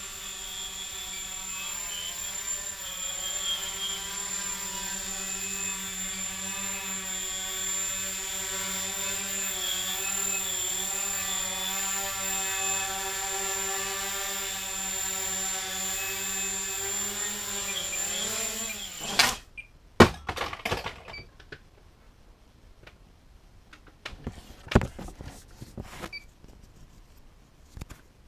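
Micro quadcopter's small brushless motors and carbon fibre props buzzing in flight, a steady whine whose pitch wavers up and down as the throttle changes. About 19 seconds in the motors wind down sharply and stop, followed by a few scattered knocks and clicks.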